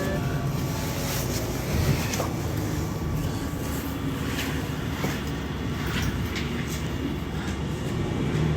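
City bus running along the road, heard from inside the cabin: a steady low engine and road rumble with occasional faint rattles.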